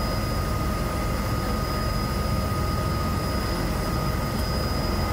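De Havilland Beaver floatplane's engine and propeller running steadily while the plane taxis on the water, heard from inside the cabin: a constant low rumble with a couple of thin steady tones above it.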